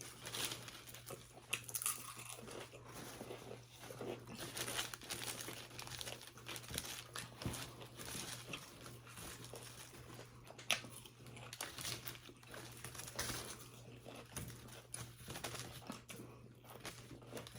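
A crisp-packet bag crinkling and potato chips being crunched while eaten, in irregular snaps and rustles, over a steady low hum.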